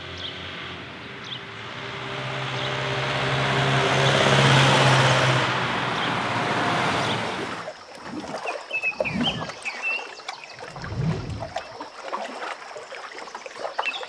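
A humming motor sound that swells to a peak about four seconds in and dies away by about eight seconds, like a vehicle passing. It is followed by a few quieter, low whooshes.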